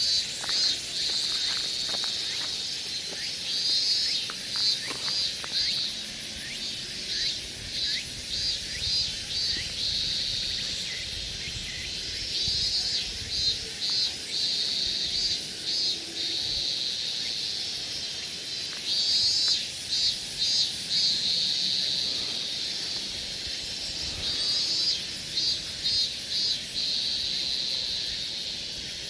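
A chorus of insects calling: a steady high buzz that breaks every few seconds into rapid pulsed trills, with fainter very high chirping over it.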